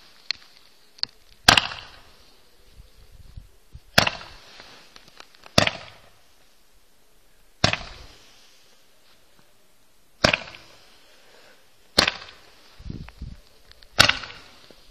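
Roman candle firing its shots one at a time: seven sharp bangs, roughly two seconds apart, each trailing off briefly.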